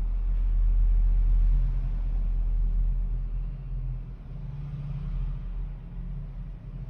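Low, steady mains-frequency hum from the transformer of a LiOA DRI 10000 II voltage stabilizer running under power. It is loudest in the first second or two, then settles lower.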